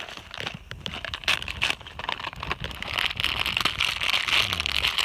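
Crunching and crackling of movement through snow: irregular crunches that thicken into a denser, hissier crackle in the second half.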